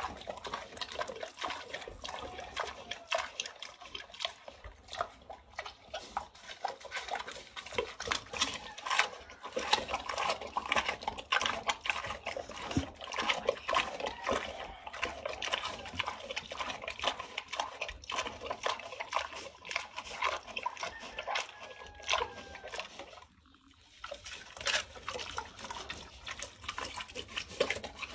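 Domestic pig chewing juicy watermelon: a dense, continuous run of crunches and smacks, with a brief pause about three quarters of the way through.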